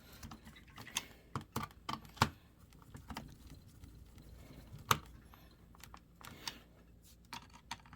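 Scattered key presses and clicks on a laptop keyboard, about a dozen irregular taps, the loudest a little past two seconds in and just before five seconds.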